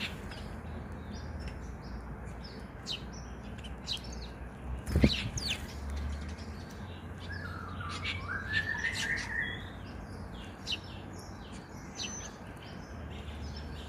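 Small wild birds chirping, many short high chirps repeated throughout, with a lower wavering call about eight seconds in. A single sharp knock about five seconds in is the loudest moment.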